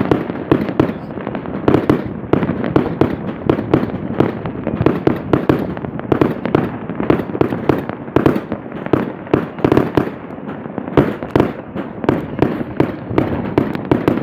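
Many fireworks and firecrackers going off all across a city at once: a dense, unbroken crackle of bangs and pops, several a second, overlapping into a steady rumble.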